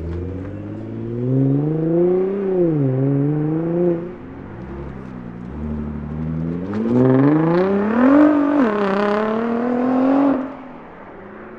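Two Nissan GT-R (R35) twin-turbo V6 engines accelerating hard one after the other as the cars pull away. Each engine rises in pitch, dips briefly at an upshift, then climbs again. The second car is louder and cuts off abruptly about ten seconds in.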